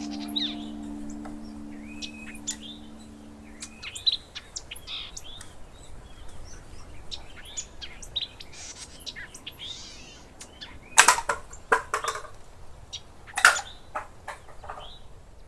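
Small birds chirping in short calls, with a few loud sharp snaps near the end.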